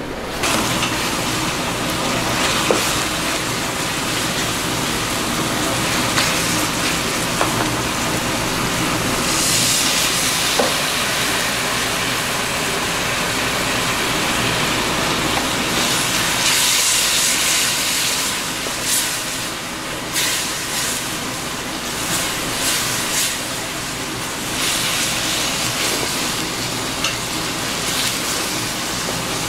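Marinated pork and cabbage sizzling and hissing in a wok as a wooden spatula stirs them. The pork is stir-fried with a little water and syrup instead of oil.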